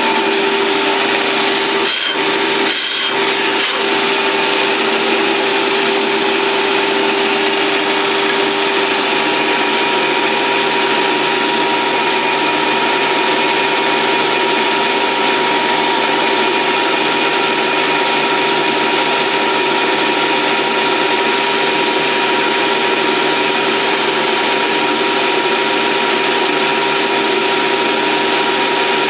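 Stanko 1K62 metal lathe running steadily, its gearbox giving a steady mechanical whir with a constant tone, dipping briefly about two seconds in.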